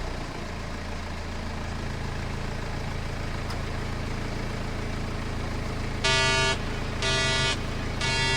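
A small engine running steadily with a low hum, and a horn sounding three short toots about a second apart near the end.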